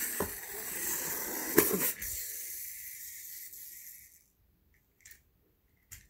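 Small clockwork toy helicopter from a wind-up track book whirring as it runs along the page tracks, with a sharp clack about one and a half seconds in; the whirr fades as the spring runs down and stops about four seconds in, leaving a couple of faint clicks.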